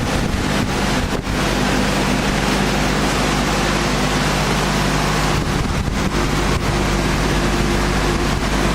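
Woodworking machinery running steadily in a sanding workshop: a loud, even rushing noise with a low hum underneath.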